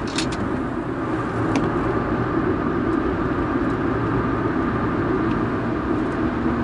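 Interior noise of a first-generation Honda Insight driven on track: its 1.0-litre three-cylinder engine running with tyre and wind noise, a steady, even drone. A couple of faint clicks come in the first two seconds.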